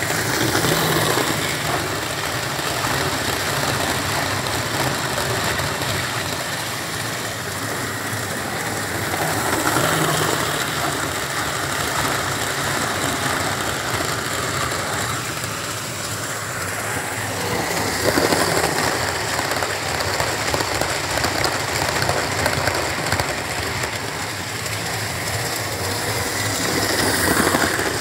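Electric model train running on a layout: a model Class 47 locomotive's motor whirs while it and its coaches rattle over the track, swelling louder several times as the train passes close.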